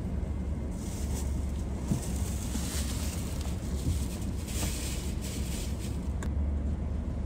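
Car interior with the engine idling and the heater fan blowing: a steady low hum under an even hiss of air. Brief patches of rustling come in between about one and five seconds in.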